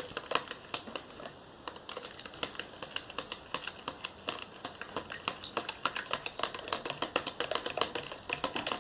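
Borax activator being stirred into water, the stirring utensil clicking rapidly against the sides of the container, several clicks a second, with a short pause about a second and a half in.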